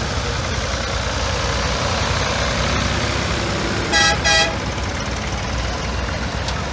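Vintage tractors driving slowly past in convoy, their engines giving a steady running noise. About four seconds in, a horn gives two short toots in quick succession.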